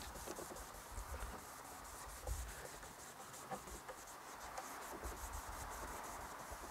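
Faint rubbing of a cloth dampened with isopropyl alcohol being wiped over the rear window's old, hardened rubber seal.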